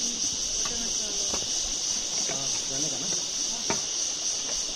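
Steady, high-pitched chorus of forest insects shrilling without a break, with a few faint knocks about one and two and three and a half seconds in.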